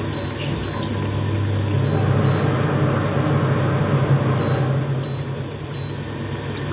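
Water at a rolling boil in a wok of green beans, over a steady low hum, with a few short, thin high-pitched blips scattered through.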